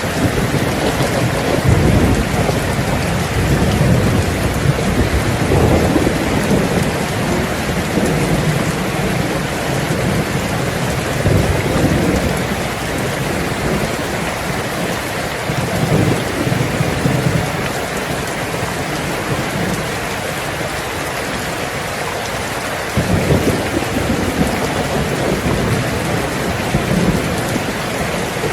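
Heavy rain falling steadily on a tin roof, a dense even hiss, with low rolling thunder that swells and fades several times.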